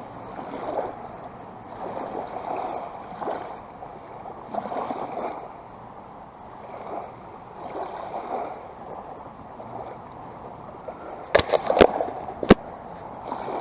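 Water splashing and sloshing in uneven swells about once a second while a hooked emperor fish is reeled in through the shallows, then three sharp clicks about two seconds from the end.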